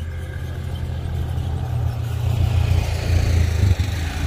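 A motor vehicle's engine running, growing steadily louder over the first three and a half seconds, with a rising hiss above the low hum.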